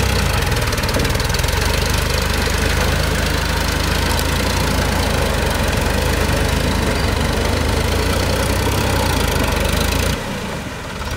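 Sonalika Worldtrac 60 RX tractor's diesel engine running steadily while it drives a rotary tiller through a flooded paddy field. The sound drops in level about ten seconds in.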